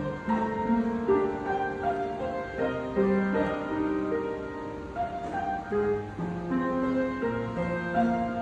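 Piano music: a melody over held chords, the notes changing about every half second.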